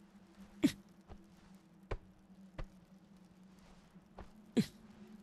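Film sound effects of movement: about six scattered soft knocks and thuds, the loudest about half a second in and near the end, over a faint low steady hum.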